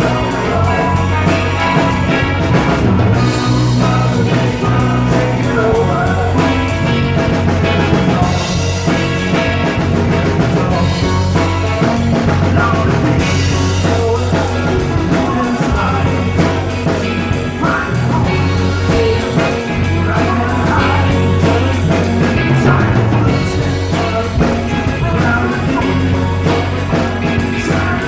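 A rock band playing live: electric guitars, bass and a drum kit with steady cymbal strokes, with some singing.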